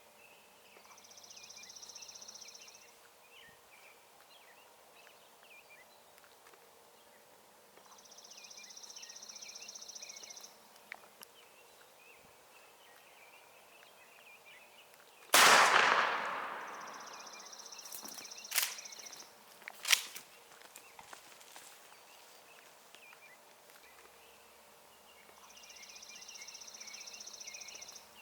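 A single shotgun shot, very loud and sudden, about halfway through, ringing away over a second or so, with two sharp cracks a few seconds after it. Between them a bird's high trill repeats about every eight seconds.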